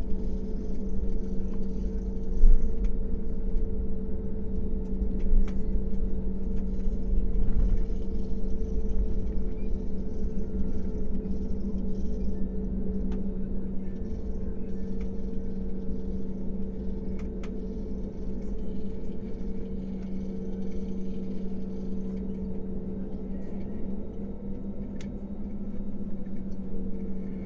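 Cabin noise of an Airbus A320-family jet airliner taxiing: a steady engine hum at idle over the low rumble of the wheels on the taxiway, with one louder bump about two and a half seconds in.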